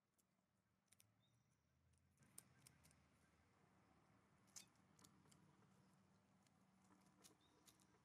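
Faint, sparse clicks of a common raven's bill tapping the wooden stump as it picks up dried mealworms. A faint low hum comes in about two seconds in.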